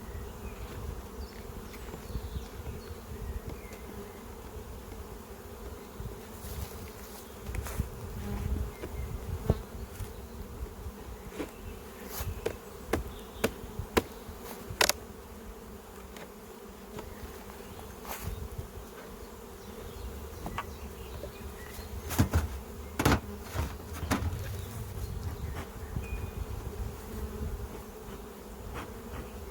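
Honeybees buzzing in a steady hum around the hives, with scattered sharp clicks and knocks, a cluster of them about halfway through and a few more later on.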